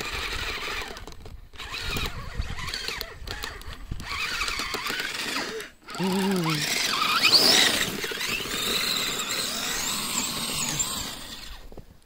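Kyosho Blizzard EV radio-controlled snowcat's electric motor and gears whining, the pitch rising and falling as it is throttled while crawling through snow.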